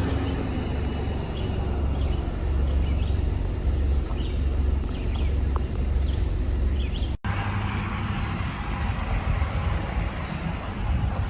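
Steady low engine rumble of a moving vehicle, with a brief dropout about seven seconds in.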